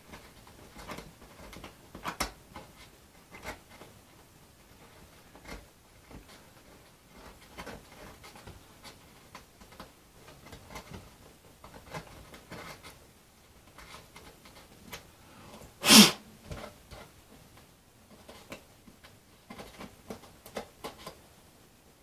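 Scattered small clicks, taps and rustles of hands working balsa model parts and hinges on a workbench, with one sharp, loud knock about two-thirds of the way through.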